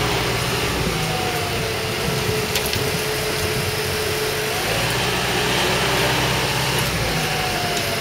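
Engine of a truck-mounted crane running steadily while the crane lowers a level-crossing barrier arm, with a thin whine that holds for a few seconds and then fades.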